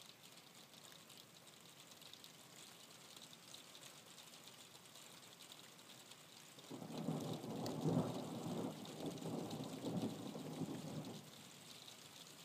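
Rain falling steadily, then a roll of thunder about two-thirds of the way in. The low rumble lasts about four seconds, swelling twice before it drops away.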